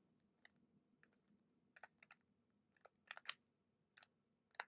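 Plastic clicks of a 3x3 Rubik's cube being turned in the hands: a few short, sharp clicks, scattered and sometimes in quick pairs, starting about two seconds in.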